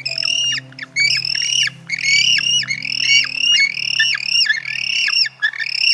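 A bird squawking in a fast run of repeated calls, about two to three a second, with a few short breaks.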